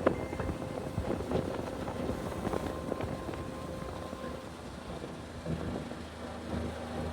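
Kawasaki Mule side-by-side driving over a snowy, icy dirt road: dense crackling and rattling throughout, with the engine's low drone growing steadier about five and a half seconds in. Wind buffets the microphone.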